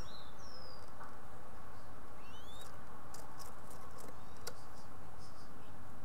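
Faint, high chirps from small birds: short sweeping whistles at the start and again a couple of seconds in, heard over a steady hiss. A few sharp clicks follow, the strongest about four and a half seconds in.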